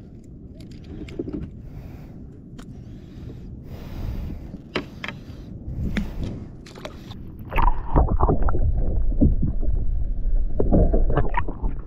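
Water sounds of a kayak being paddled: paddle splashes and water against the hull, with scattered sharp knocks. About two-thirds in it jumps to a much louder, deep rumble with clattering knocks.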